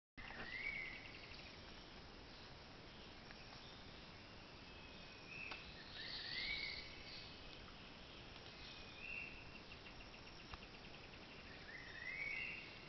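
Forest birds calling: one gives a short rising whistle three times, about six seconds apart, with chirps and quick trills between, over a steady faint hiss.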